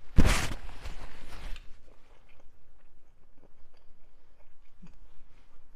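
Close-up chewing and mouth noises of someone eating spaghetti. Near the start a loud rushing noise lasts over a second and is the loudest sound here.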